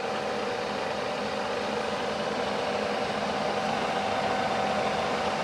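TOS FA5V vertical milling machine's spindle running steadily at its top speed of 1400 rpm: an even hum and hiss with a faint steady whine. It runs without knocking or grinding, the sign of a spindle in good condition.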